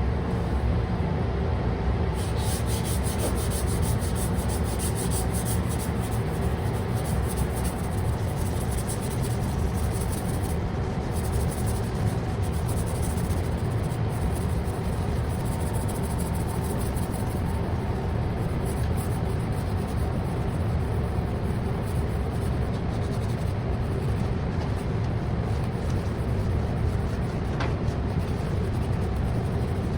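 Sanding car body parts with 400-grit sandpaper: a steady, scratchy rubbing that goes on without a break. The paper is scuffing the surface so the primer sticks.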